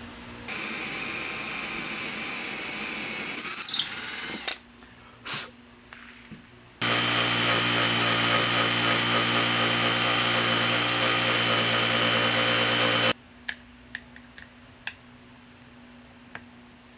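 A cordless drill boring into a block of cherry for about four seconds, with a falling squeal and louder surges near the end of the run. After a short pause a handheld cordless power tool runs steadily and louder on the block for about six seconds, followed by a few sharp clicks as the tools are handled.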